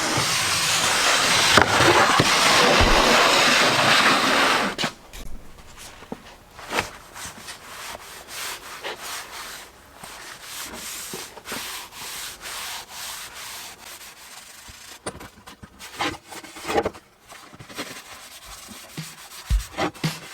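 Sanding on wood: a loud rough hiss that stops about five seconds in, followed by quieter scattered clicks and knocks.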